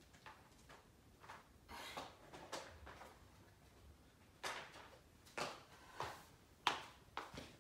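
Scattered knocks, clicks and rustles of household things being handled, as in packing for a move. The sharpest knock comes near the end.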